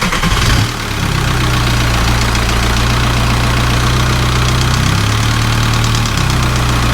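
Volkswagen Jetta's 1.9 TDI (ALH) four-cylinder diesel, just started, settling within the first second into a steady idle with a fast tick running through it. The owner takes the tick for lifter tick that fresh oil has not cured.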